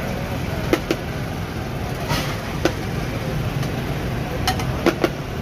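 A metal serving spoon and ceramic plates clinking several times, sharp and short, as rice is dished out, over a steady hum of street noise.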